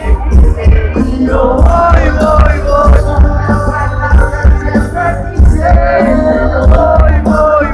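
Live reggaeton music: a sung vocal over a heavy, steady bass beat.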